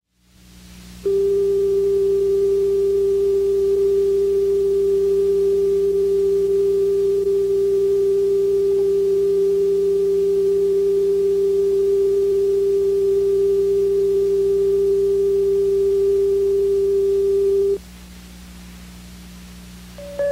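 A steady line-up reference tone at the head of a videotape, one unbroken mid-pitched tone over low hum and tape hiss. It cuts off suddenly, leaving only the hum and hiss. Near the end a higher countdown-leader beep starts.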